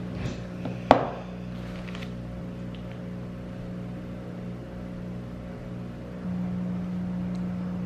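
Washing machine running: a steady low hum that gets louder about six seconds in. A single sharp knock about a second in.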